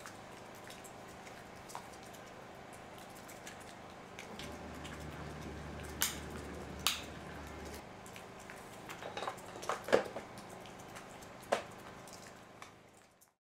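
Hard plastic clicks and knocks as a STIHL chainsaw's fleece air filter is pressed into place and its top cover is fitted back on. There are two sharp clicks midway, then a cluster of knocks, the loudest about ten seconds in, over a faint steady background.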